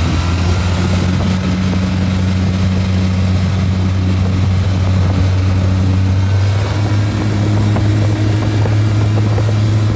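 Cummins QSB 6.7 inline-six turbo-diesel of a 9 m speedboat running hard under way: a loud, steady drone with rushing water. About seven seconds in, the engine note rises as it picks up more revs.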